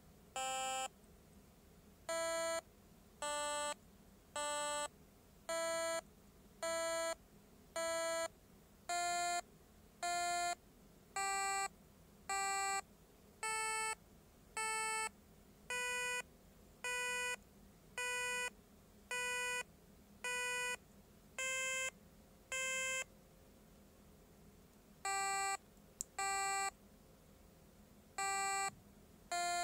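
BBC micro:bit playing a tune of single buzzy electronic beeps, each about half a second long, roughly one a second, stepping gradually upward in pitch. There is a pause of about two seconds near the end before lower notes resume. It is a note sequence being played back by a simple micro:bit sequencer program.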